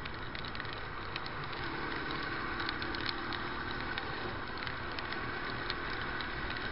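Motorcycle riding on a rain-soaked highway: steady wind and tyre noise with a faint engine hum, and scattered raindrop ticks hitting the camera.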